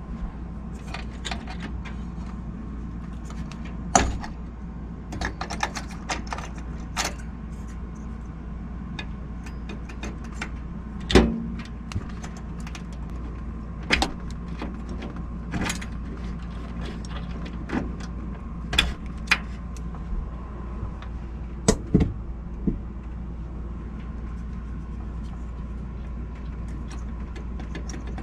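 Hands working inside an open desktop PC case: scattered sharp clicks and knocks of plastic and metal parts as the stock CPU cooler is worked loose, the loudest about 11 seconds in. A steady low hum runs underneath.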